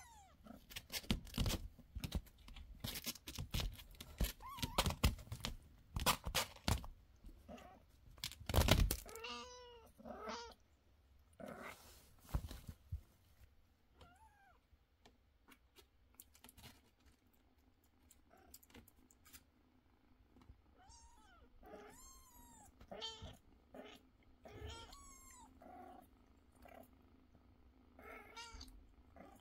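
Kittens mewing: short, high, rising-and-falling calls that come off and on, most often in the second half. Through the first dozen seconds a run of knocks and thumps, the loudest a heavy thump about nine seconds in.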